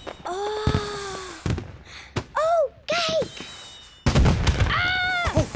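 Cartoon firework rocket: whistling pitch glides, then a sudden loud bang about four seconds in that rumbles on for over a second.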